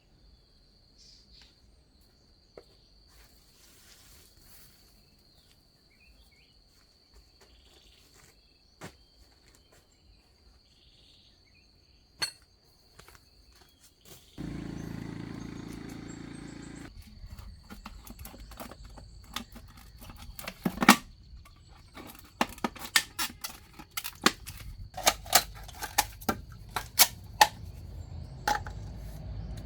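Sharp clicks and knocks of hand tools at work, sparse at first, then coming thick and fast in the second half, over a steady high insect drone. A low hum starts about halfway through and stops about three seconds later.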